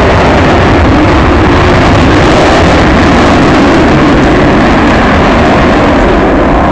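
Avro Vulcan bomber's four Rolls-Royce Olympus turbojets roaring, very loud and steady, as the jet passes during a display.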